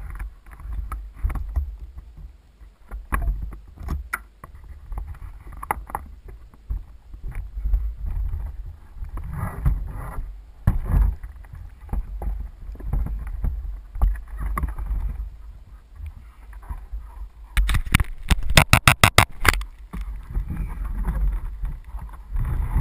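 Water splashing and knocking around a pedal boat as a model seaplane is hauled aboard, over a low wind rumble on the microphone. There are scattered bumps, and a quick rattle of sharp clicks comes about two-thirds in.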